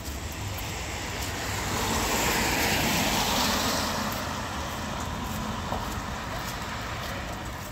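A car driving past on wet asphalt: the hiss of its tyres on the wet road swells to its loudest about two to four seconds in, then fades.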